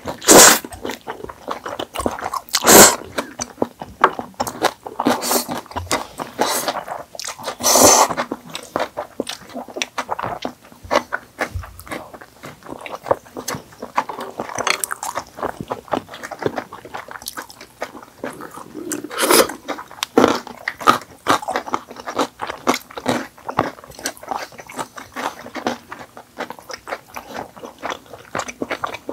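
Two people eating seasoned fried chicken and jjapaghetti noodles, a steady run of close chewing and biting sounds. Several louder bursts stand out, the first as noodles are slurped in at the start, and others about 3, 8 and 19 seconds in.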